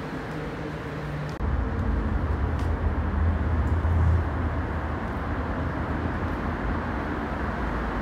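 City traffic noise: a steady hum, with a deep rumble that comes in suddenly about a second and a half in, swells to a peak around four seconds, then eases back to a steady level.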